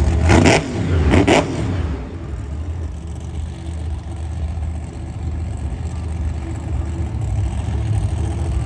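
Grave Digger monster trucks' supercharged V8 engines: two short, loud revs about half a second and just over a second in, then the trucks idle with a steady deep rumble.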